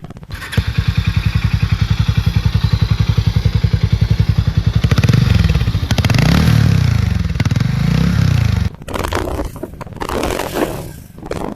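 Single-cylinder motorcycle engine idling with an even, fast exhaust pulse, then blipped a few times so the pitch rises and falls, before it cuts off abruptly. The last couple of seconds hold uneven, broken noise.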